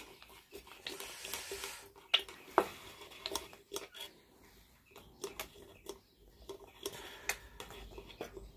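Hand oil can being worked to oil a metal drill vice: irregular clicks and light metal clinks.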